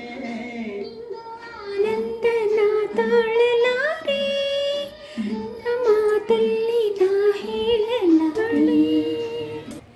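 An old Indian film song playing from a television: a high voice, likely a woman's, sings a wavering melody over instrumental accompaniment, heard through the TV's speakers in the room.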